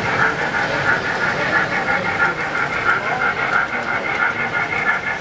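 O-scale model train running on the layout: a steady whirring clatter from the rolling wheels and track, pulsing in a regular rhythm a few times a second.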